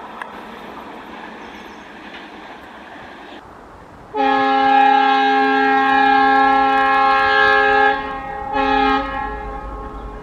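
Air horn of a WDM-3D ALCo diesel locomotive sounding one long, loud blast of about four seconds, then a short blast, after a few seconds of steady noise.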